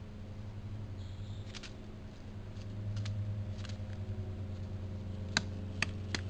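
Pileated woodpecker pecking at a tree: a handful of sharp, irregular taps, the loudest two close together near the end, over the trail camera's steady electrical hum.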